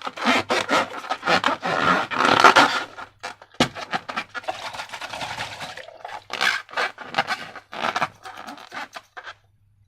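Slime being squished and stretched by hand, a dense run of sticky crackling and squelching with many small clicks. One sharper click comes about three and a half seconds in, and the sound stops shortly before the end.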